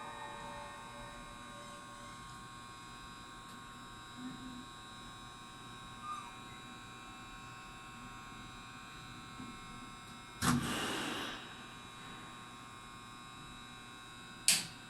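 Steady electrical hum made of several fixed tones from a stationary electric train's equipment. About ten seconds in comes a short burst of hissing noise lasting under a second, and near the end a single sharp click, the loudest sound.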